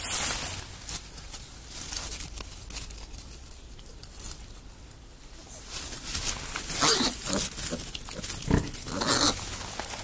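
An animal's sounds very close to the microphone: a few short noisy bursts, a cluster about seven seconds in and another about nine seconds in.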